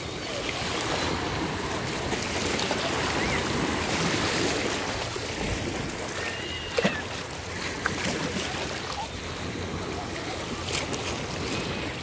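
Small choppy waves of the Chesapeake Bay washing and lapping around shoreline rocks and the shallows, a steady wash. Two sharp knocks close together about seven seconds in.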